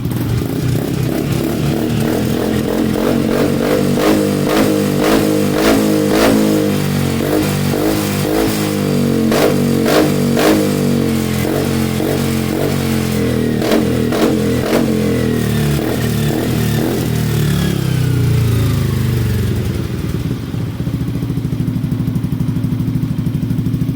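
Yamaha XMAX 300 scooter's single-cylinder four-stroke engine running through an adjustable-valve exhaust, idling and revved in short blips several times, its exhaust valve being switched between closed and open to compare the two sounds.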